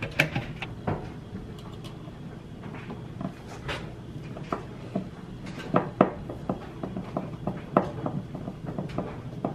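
Metal draw latch being screwed onto a wooden box with a hand screwdriver: scattered light clicks and knocks of metal on wood, the sharpest knock about six seconds in.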